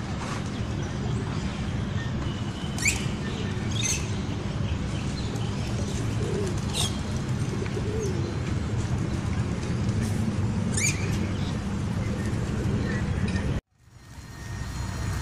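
A large flock of feral pigeons cooing in a continuous low chorus, with a few sharp high chirps now and then. Near the end the sound cuts out abruptly and then fades back in.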